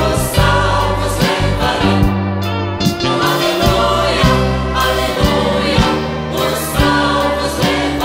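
Gospel song: a choir singing over a band, with a bass line and regular drum hits.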